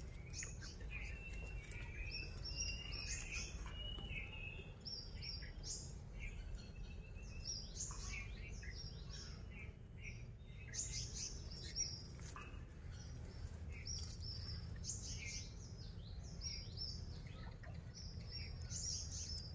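Small birds chirping: many short, high calls repeated and overlapping throughout, over a low steady rumble.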